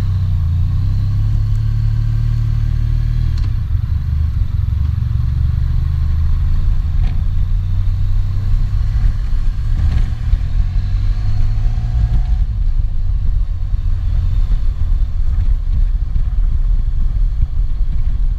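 Honda Crosstourer's V4 engine running under way, heard mostly as a dense low rumble that turns more ragged and uneven about four seconds in. It is picked up by a GoPro Hero 4 with no microphone attached.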